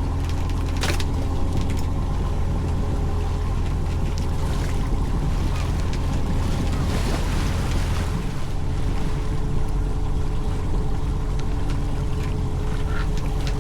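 Fishing boat's engine running steadily with a low hum, and a sharp knock about a second in.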